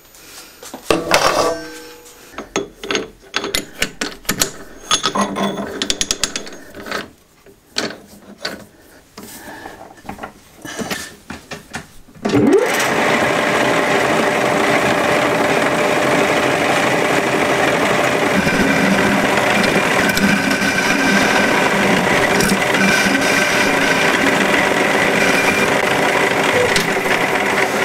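Irregular clicks and knocks of metal parts being handled, then about twelve seconds in an old metal lathe, roughly 80 years old and well worn, switches on with a short rising whine and runs steadily, its spindle turning a round bar held in a collet chuck.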